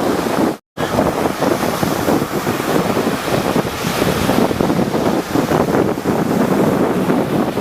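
Rough sea surf, waves breaking and washing in a continuous loud rush. The sound cuts out completely for a split second about half a second in.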